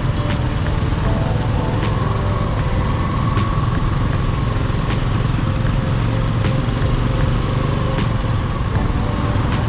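City street traffic: motor vehicle engines running steadily with a low rumble, a faint wavering whine and scattered clicks.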